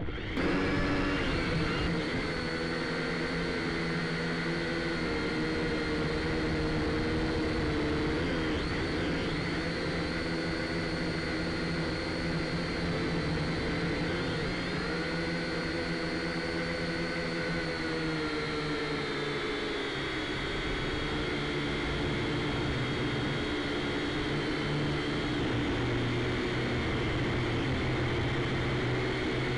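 A drone's electric motors and propellers whining steadily in flight, heard through its own camera, with the pitch shifting a little now and then as it manoeuvres.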